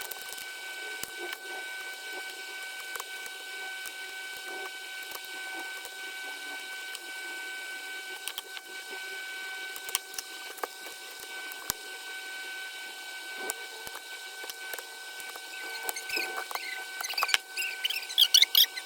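Scattered light clicks and taps from hands and small tools working on an opened laptop, over a steady high-pitched whine. Near the end comes a quick run of squeaky chirps and sharper ticks.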